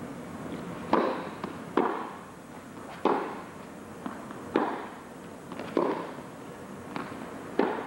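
Tennis rackets striking the ball and the ball bouncing on court: a serve about a second in, then a rally, about seven sharp echoing pops spaced roughly a second apart.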